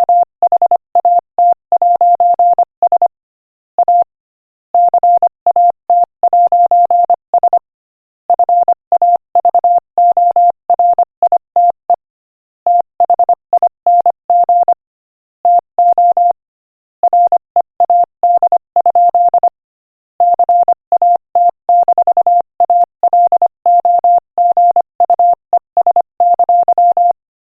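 Morse code sent at 25 words per minute: a single steady mid-pitched beep keyed on and off in dits and dahs, with longer pauses between words.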